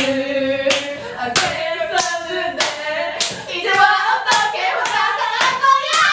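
Two young women singing a chant together while playing a patterned hand-clapping game, their palms smacking together in a steady rhythm a little under twice a second.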